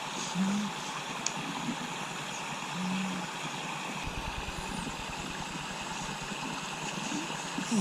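Two-month-old baby snoring in her sleep: short, low snorts about half a second in, again about three seconds in and near the end, over a steady hiss.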